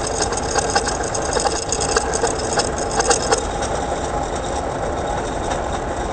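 A truck's belt tensioner pulley heard through a mechanic's stethoscope pressed on its arm, with the engine running. It gives a steady hum broken by many irregular clicks and rattles: this pulley is the bad one, the source of the engine noise.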